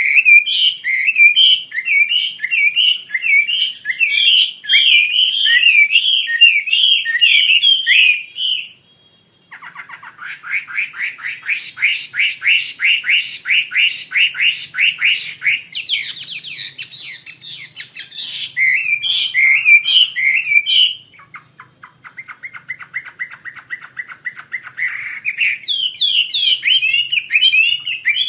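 Chinese hwamei (melodious laughingthrush) in full, loud song: varied phrases of rapidly repeated notes, a brief pause about nine seconds in, then a long fast trill, and further changing runs and trills.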